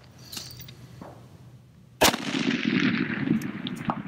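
A single rifle shot about halfway through from a bolt-action Mauser K98k converted to 7.62x51mm NATO, followed by a long echo rolling away.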